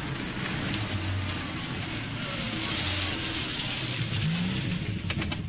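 A car's engine running at low speed as the car pulls up alongside. A few sharp clicks come near the end.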